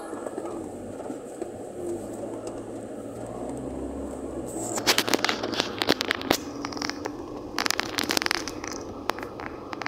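Walking noises from a person carrying a handheld phone along a wet dirt road. After a steady low rumble, irregular crackling and scraping clicks start about halfway through and come in clusters.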